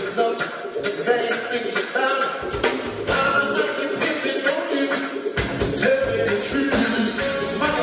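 Live Motown soul music: a band playing behind a male lead singer singing into a handheld microphone. The low bass drops out for the first few seconds and comes back in about five seconds in.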